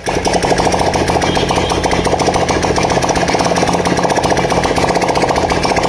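Honda Dream Yuga's 110 cc single-cylinder four-stroke engine running steadily with no silencer fitted, a loud rapid train of open-exhaust pulses. It is running just after a top-end rebuild with a bored cylinder, new piston and rings, and new valves and guides.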